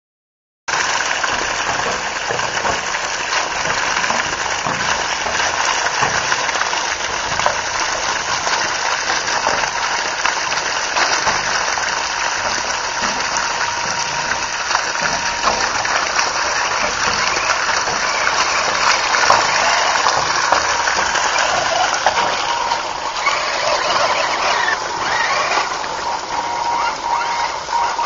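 Fast-flowing shallow stream water gushing and splashing steadily around a wading RC crawler, starting suddenly about a second in, with a faint thin steady whine underneath.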